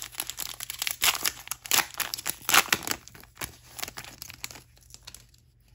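Plastic wrapper of a trading card pack crinkling and tearing as it is opened by hand, a dense crackle that dies away a little after four seconds in.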